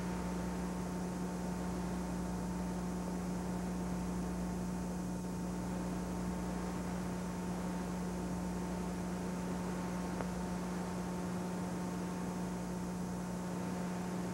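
Steady electrical hum with a constant hiss under it, unchanging throughout, with no other sound.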